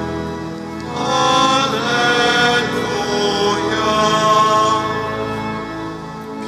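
Slow church hymn sung by many voices, long held notes changing every second or so over steady organ tones.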